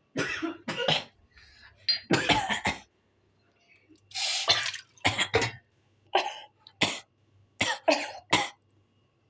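Harsh, repeated coughing fits: about a dozen short coughs, some in quick runs of two or three. The coughing comes from choking on tarhana soup that went down the wrong way.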